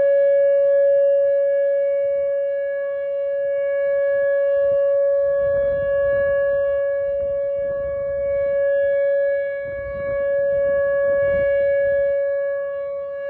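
Whelen WPS 2905 electronic outdoor warning siren sounding its steady alert tone, one unwavering pitch whose loudness swells and dips a little. It is a monthly test of the siren.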